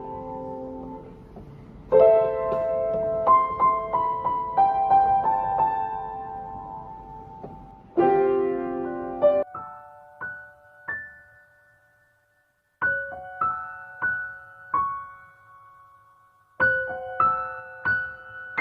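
Background music: solo piano playing slow chords and single notes that ring out, with a near-silent pause about two-thirds of the way in.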